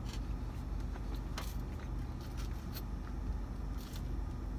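Steady low hum inside a parked car, its engine and air conditioning running. A few short clicks of eating cut through it, from chewing and from the fork in the takeout box.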